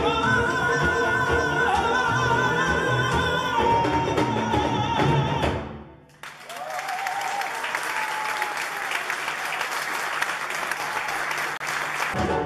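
A singer with a live band sings a held melodic line. The music cuts off about six seconds in, and the audience applauds for several seconds. The band starts up again at the very end.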